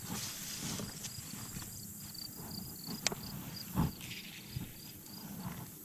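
High-pitched insect chirping, about four chirps a second, steady throughout. A few brief knocks about three and four seconds in sit over low rustling.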